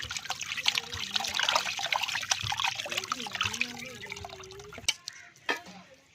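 Water pouring and splashing with a busy trickle, stopping about five seconds in, followed by a few light knocks.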